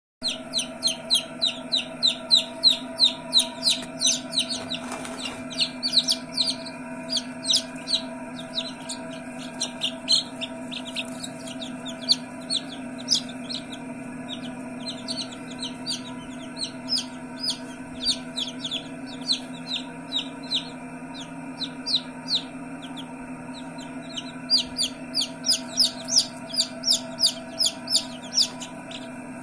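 Newly hatched chicks peeping, a stream of short high cheeps several a second, busiest in the first few seconds and again near the end. A steady low hum runs underneath.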